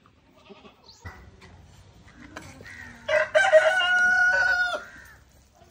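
A rooster crowing once, about three seconds in: a short first note and then a long held note, lasting nearly two seconds.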